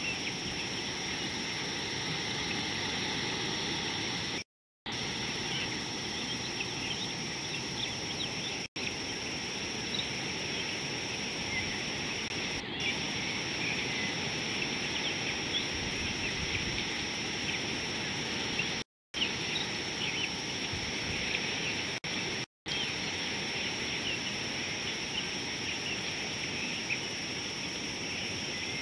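Steady outdoor bush ambience: a constant high insect-like drone with many small bird chirps scattered through it. The sound cuts out completely for a moment four times.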